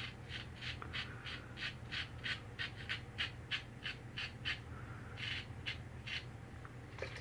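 Vintage Superior lather-catcher safety razor scraping through lathered stubble in short, quick strokes, about three to four a second, then a few slower, spaced strokes near the end.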